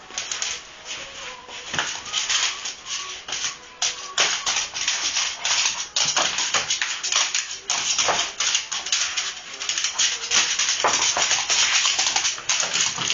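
A small dog's claws scrabbling and tapping fast on a wooden floor as it hops about on its hind legs: a dense, irregular clatter of scratchy clicks, many each second.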